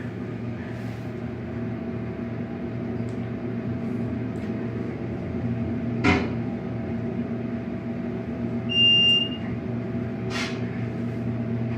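Elevator car travelling with a steady mechanical hum, a sharp click about halfway through, then a single electronic beep of the floor chime near the end followed by a knock.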